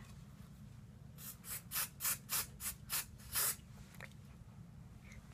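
Hairspray sprayed onto rolled-up hair in about eight short spritzes, roughly three a second, hissing briefly each time.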